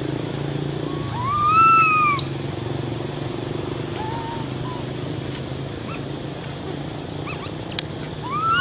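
Baby macaque crying: a drawn-out arching wail about a second in, a short faint squeak around four seconds, and another rising cry near the end, over a steady low hum.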